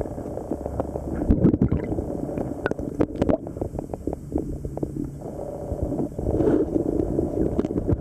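Water moving heard underwater, a muffled low rumbling and gurgling, with a scatter of sharp clicks that are thickest from about one to three and a half seconds in.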